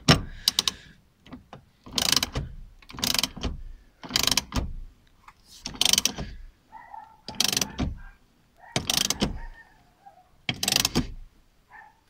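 Socket ratchet wrench clicking in a string of short strokes, roughly one a second, tightening the steering wheel hub nut onto the steering column.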